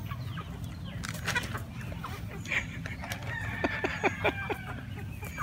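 Backyard chickens, a mixed flock of hens and young birds, clucking as they forage, with one drawn-out call lasting about a second past the middle. A few sharp taps come together about two-thirds of the way through.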